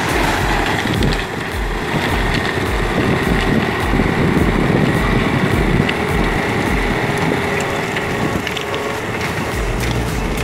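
Heavy forestry machine's engine running under load, with crushing and mechanical noise and some wind on the microphone.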